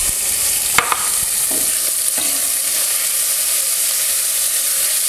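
Sliced bacon sizzling as it fries in an enameled cast-iron Dutch oven, stirred with a spatula, with a couple of sharp knocks about a second in.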